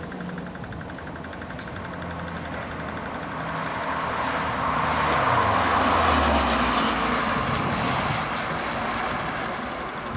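Lexus IS-F's 5.0-litre V8 growing louder as the car approaches, passing by about six seconds in with its engine note dropping in pitch, then fading away.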